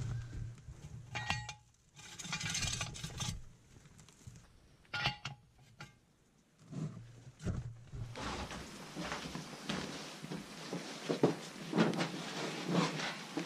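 Sharp metal clinks with a brief ring, about a second in and again about five seconds in, from a wrench and bolts as a bolt-on step is fitted under a compact tractor. From about eight seconds in, a run of scuffs and knocks as boots climb up onto the tractor by the new step.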